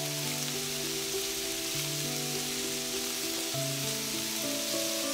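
Beef strips sizzling as they sear in a hot oiled pan. Soft background music of slowly changing held chords plays over it.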